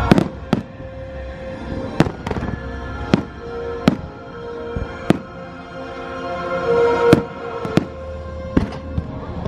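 Fireworks going off in sharp bangs, about a dozen at irregular intervals, over the fireworks show's soundtrack music.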